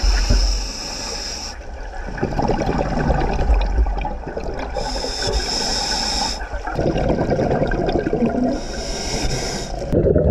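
Scuba diver breathing through a regulator underwater: three hissing inhalations, the first already under way, each followed by a long gurgle of exhaled bubbles.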